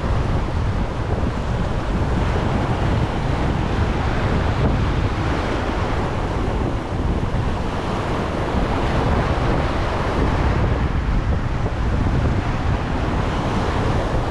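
Steady wind buffeting the microphone, mixed with the wash of sea waves.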